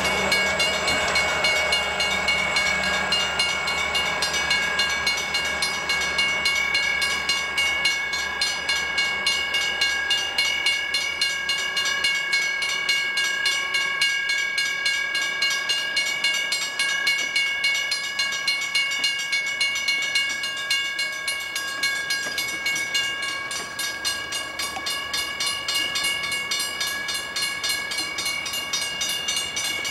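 Southern Pacific freight cars rolling past on steel wheels, clicking over the rail joints in a quick, even rhythm, with a steady high-pitched metallic squeal from the train throughout. A lower rumble fades away in the first few seconds.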